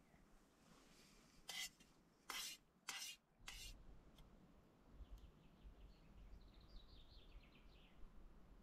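Four short scrapes and clinks of an eating utensil in a metal camp cooking pot. Then faint outdoor noise and a small bird singing one phrase of high notes that step downward.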